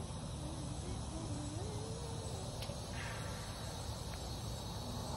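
Insects chirring steadily outdoors over a low rumble, with two faint clicks partway through.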